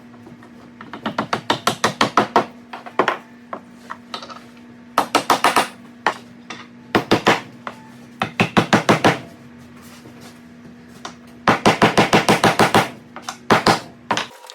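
Workshop tool noise: bursts of rapid sharp knocks, several a second, in groups about a second or two long with short pauses between, over a steady machine hum.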